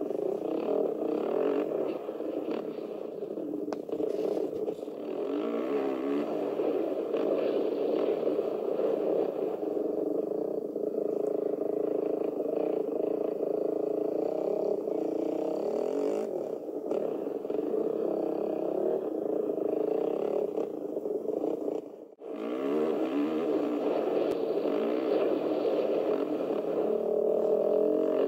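450cc four-stroke motocross bike running under the rider, its engine revving up and down through the gears as it is ridden around a dirt track. About three-quarters of the way through, the sound cuts out sharply for a moment, then the engine revs back up.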